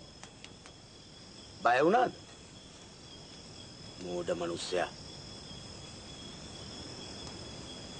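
Crickets chirring steadily as two unbroken high tones. A person's voice cuts in briefly twice, about two seconds in and again about four seconds in.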